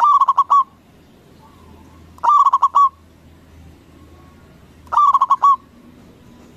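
Zebra dove (Javanese perkutut) singing its cooing song: three short phrases about two and a half seconds apart, each a quick run of four or five notes.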